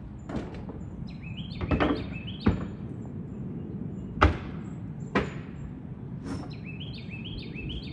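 Several sharp, separate knocks or taps, the loudest about four seconds in, over steady outdoor background noise, with two short phrases of quick high chirps from a bird.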